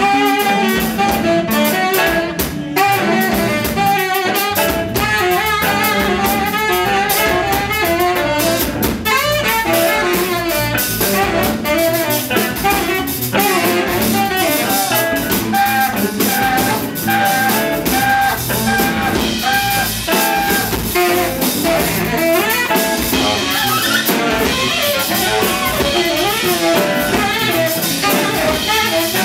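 Live free jazz from a quartet: saxophone over drum kit, electric bass and electric guitar. About halfway through, the saxophone repeats short notes at one pitch.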